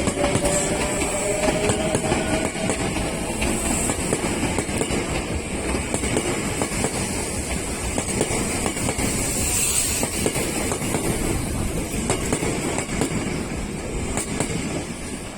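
Electric train running on the rails: a steady rumble and hiss with faint clicks of wheels over rail joints, fading somewhat near the end.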